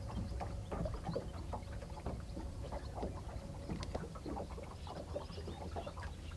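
Soft handling noises of gloved hands working roe bait in a plastic tub: scattered small clicks and ticks over a low steady rumble.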